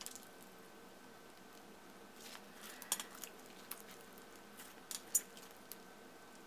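Clear orange slime with foam beads being pressed and stretched by hand: a scattered run of small sticky pops and clicks starting about two seconds in, the sharpest about five seconds in.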